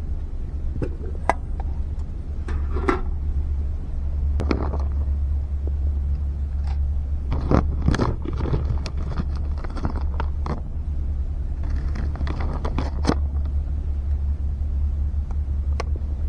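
Steady low rumble of strong wind buffeting the microphone, with scattered clicks and short crackling, scraping sounds throughout.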